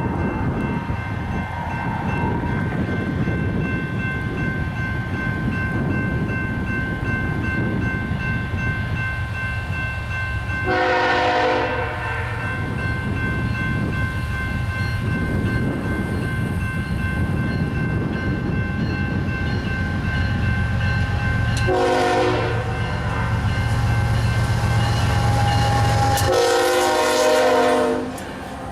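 Air horn of a BNSF GE ES44C4 locomotive leading a freight train, sounded three times: a blast of about a second, a short one, then a longer one near the end. Underneath is the steady rumble of the moving train.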